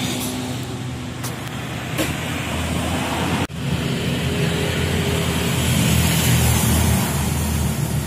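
A motor vehicle engine running steadily under a haze of traffic noise, broken off sharply about three and a half seconds in.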